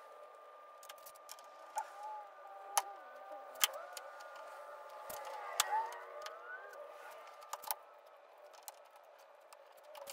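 Steel bar clamps being set on a wooden tray: scattered sharp clicks and knocks as the clamp jaws are slid and snapped into place, four or five of them standing out. A faint wavering tone rises and falls in the background through the middle.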